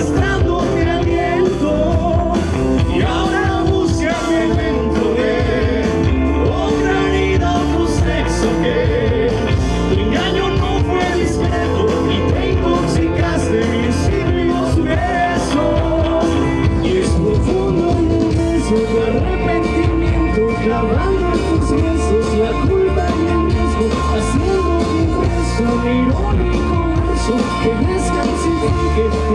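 A rock band playing live on an open-air stage, with electric guitar, bass guitar and drum kit under a lead vocal, heard through a fan's camera in the audience.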